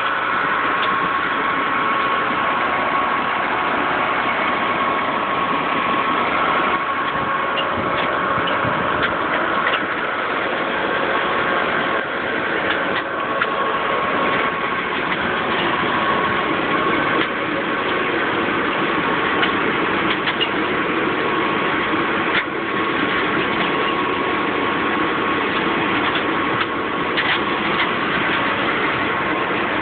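Engine and machinery of a Brussels sprout harvesting rig running steadily, a constant drone with a steady whine, with scattered short clicks and knocks.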